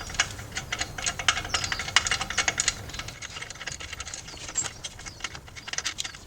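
Ratchet socket wrench clicking in quick runs as the alternator's belt-tensioner bolt is undone; the clicks are dense for the first two or three seconds, then come more sparsely.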